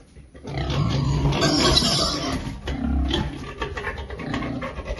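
Pigs grunting and squealing, loudest about one and a half to two seconds in.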